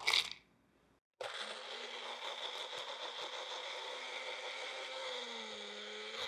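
Magic Bullet personal blender motor running steadily, grinding roasted peanuts and sugar into peanut powder. It starts about a second in, and its hum drops a little in pitch near the end.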